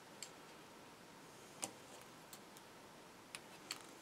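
A few faint, sharp clicks at uneven intervals from a plastic model kit sprue being handled, the clearest a little over a second and a half in.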